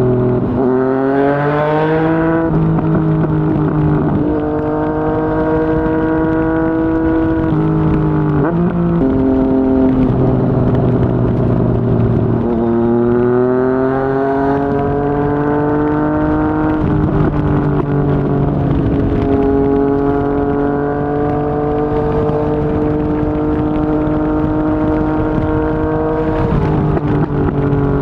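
Yamaha MT-09's three-cylinder engine through a Yoshimura R55 slip-on exhaust, under way: it revs up through the gears with sudden pitch drops at the shifts, then holds a steadier cruise before rising again near the end.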